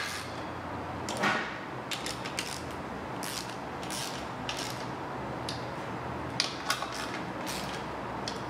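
Hand ratchet with a 10 mm socket snugging exhaust header bolts: scattered ratchet clicks and metal-on-metal clinks, with a louder rasp about a second in.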